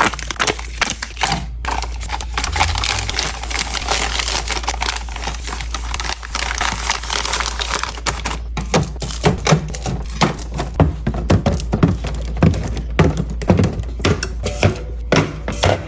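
Snack packaging crinkling and rustling as it is handled, with a dense stretch of rustling in the first half, then many quick clicks and knocks of items being tapped and set down.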